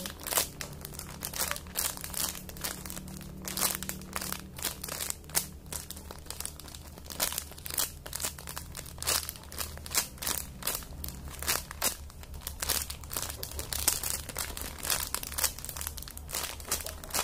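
Irregular crinkling and rustling as a squishy toy is handled and squeezed close to the microphone, over a steady low hum.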